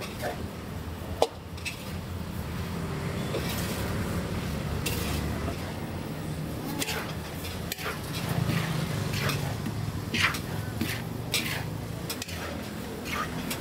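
A metal spatula scrapes and stirs goat-meat fried rice in a huge pot, with sharp clinks of metal on metal. The loudest clink comes about a second in. A steady low hum runs underneath.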